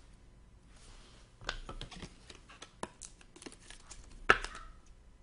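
Trading cards and their packaging being handled: a run of small clicks and light rustles, with one louder sharp tap a little after four seconds in.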